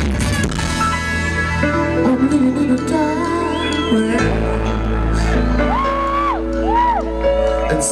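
A live band playing: keyboard and drum kit over a steady low bass, with a high melody line that slides up and down between notes in the second half.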